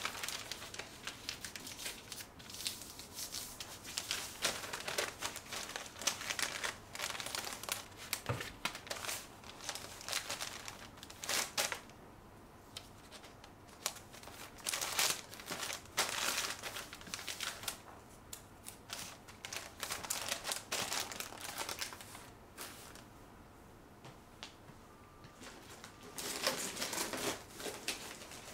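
Brown kraft wrapping paper crinkling and rustling as it is folded and creased by hand around a parcel, in many short irregular rustles, thinning out with quieter gaps in the second half and a last cluster of rustling near the end.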